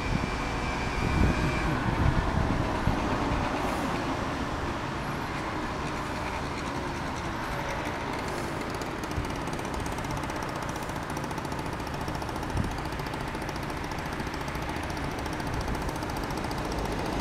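Road traffic at a junction: cars driving past with steady tyre and engine noise, the pitch of a passing car falling in the first few seconds.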